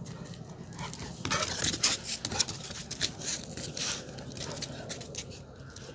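A Rottweiler breathing hard in a series of short noisy breaths, irregular at roughly two a second, as it jumps up at a person.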